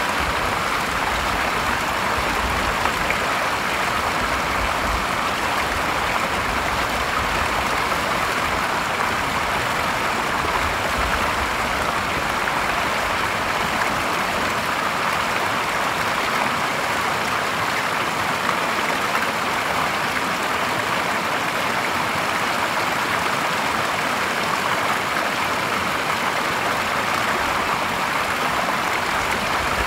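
Clear stream water falling in a small cascade over rocks into a shallow pool: a steady splashing and babbling that holds even throughout.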